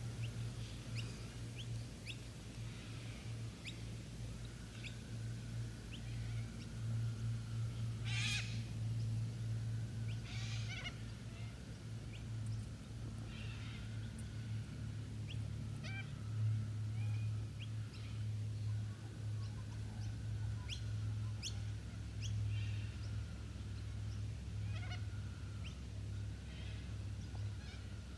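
Outdoor ambience: scattered short bird chirps and ticks over a steady low hum, with two brief louder calls about a third of the way through.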